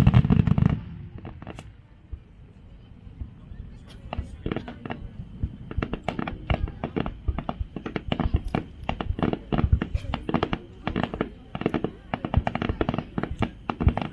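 Fireworks display: the heavy boom of a large shell burst dies away in the first second. From about four seconds in comes rapid, uneven crackling of many small bursts.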